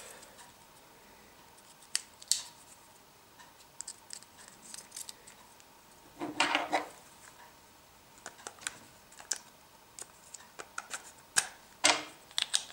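Small hard plastic clicks and taps as AAA batteries are pressed into a headlamp's plastic three-battery holder and the holder is fitted back into the lamp housing. A short louder clatter comes about six seconds in, and a few sharp clicks near the end.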